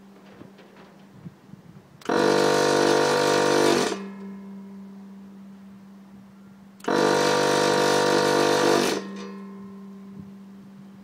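Thomas electric vacuum pump on a vacuum glass lifter switching on twice, running for about two seconds each time with a steady whine, and cutting off abruptly; a steady low hum continues in between.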